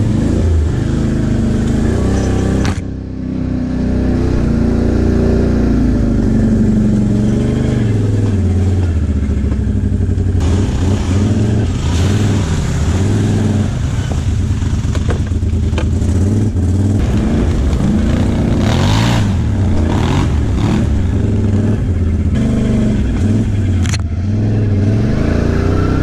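Can-Am Outlander XMR ATV's V-twin engine running and revving up and down as it crawls a muddy, rutted trail, easing off briefly about three seconds in. A few sharp clatters from the machine bumping over ruts come in the second half.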